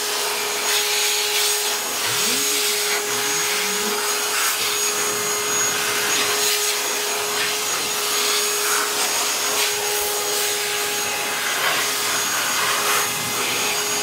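Parkside PALP 20-Li B2 cordless air pump running as a blower, blowing dust out of a computer case: a steady motor whine over a rush of air.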